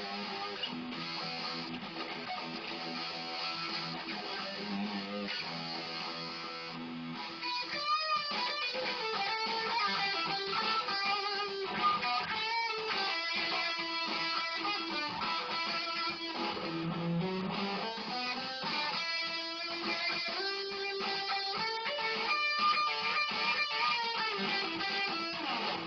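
Electric guitar playing an instrumental break in a blues rock song. It plays a repeating chord riff for about the first seven seconds, then a lead line of single notes with string bends.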